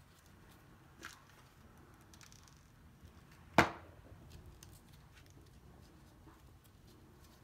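Quiet handling of stiff paper: faint rustles and small ticks as a fringed paper strip is pressed around a glittered foam ball, with a small click about a second in and one sharp, loud knock about three and a half seconds in.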